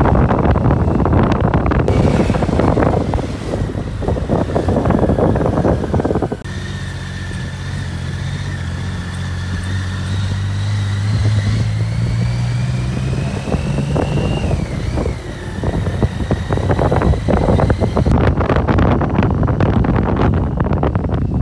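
BMW K75 motorcycle's three-cylinder engine running at low road speed, with a thin whine above the engine note that rises slightly and then dips about two thirds of the way in. Wind buffets the microphone at first and again near the end.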